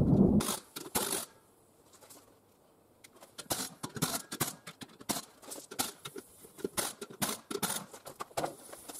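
Irregular sharp clicks and knocks, several a second, from hand tools and metal parts during assembly of an ATV log trailer. A louder low rumble stops about half a second in, and the clicking starts after a short quiet spell.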